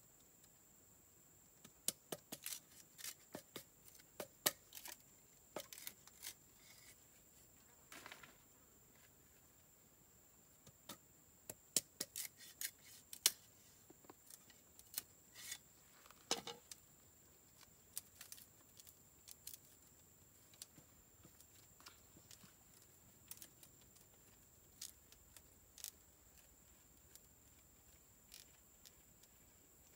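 Green bamboo being split into thin strips with a knife: irregular sharp cracks and snaps of the fibres, thickest in the first half, with a couple of longer tearing splits.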